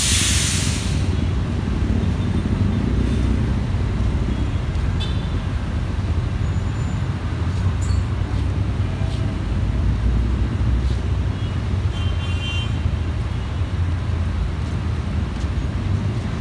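Scania coach's diesel engine running low and steady as the bus pulls slowly away, with a loud hiss of air from the air brakes in the first second.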